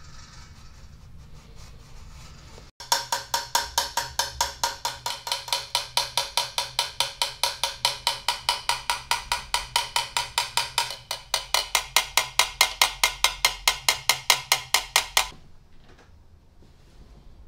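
Rapid, even hammer taps on the brass bell of a Besson trumpet, about five a second, each with a short pitched metallic ring, as a dent is tapped out. The tapping starts abruptly about three seconds in and stops abruptly a couple of seconds before the end.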